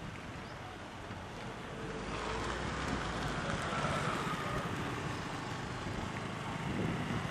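Motor vehicle noise with wind on the microphone, swelling about two seconds in and easing off again.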